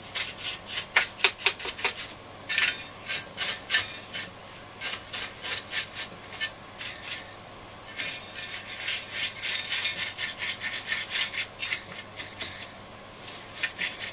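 A brush being scrubbed over a transistor radio to clean it, in quick strokes, several a second, coming in runs with short pauses between.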